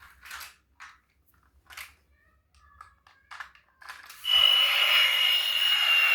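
A few short plastic clicks and knocks, then about four seconds in a loud, steady electronic sound with one high tone starts and carries on.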